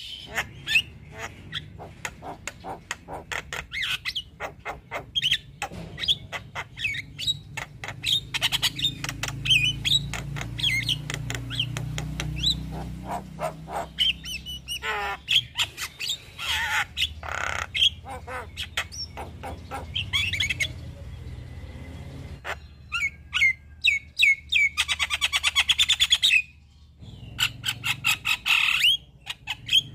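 Javan myna singing a long, varied run of harsh chattering squawks, clicks and short whistled notes, with a fast rattling trill about 25 seconds in.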